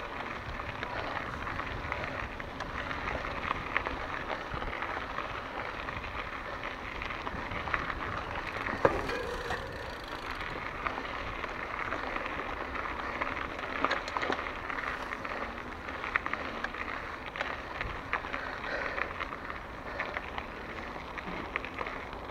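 Mountain bike rolling along a narrow dirt singletrack: the tyres crackle over the dirt and the bike rattles with many small clicks, with a sharper knock about nine seconds in.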